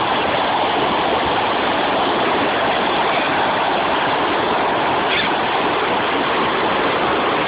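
Fast-flowing floodwater rushing across a flooded road: a steady, even rush of turbulent water.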